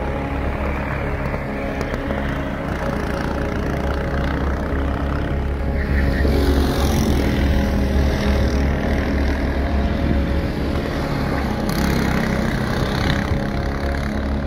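Go-kart engine running out on the track over background music, the engine sound swelling around the middle as the kart goes by.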